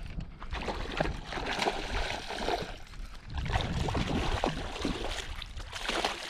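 Water sloshing and trickling, with uneven swells and small splashes.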